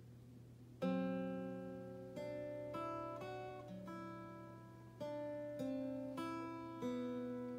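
Solo Ovation-style roundback acoustic guitar playing jazz chords. A quiet note rings at first, then about a second in a loud chord is struck, followed by a string of chords, each struck and left to ring, a new one every half second to a second and a half.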